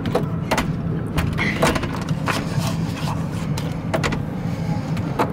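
Short, sharp clicks and taps of a plastic keycard and an electronic hotel door lock, with the lock's lever handle being worked, about eight clicks in all over a steady low hum.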